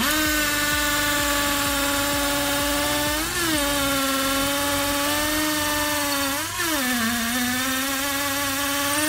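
Bosch 36V cordless hammer drill running in its concrete (hammer) mode, boring into a brick with a steady high motor whine. The whine wavers briefly in pitch twice, about three and six and a half seconds in, as the load on the bit shifts.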